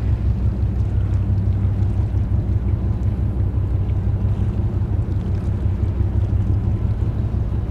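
Steady low drone of a ship's diesel engines, an even hum with no change in pitch.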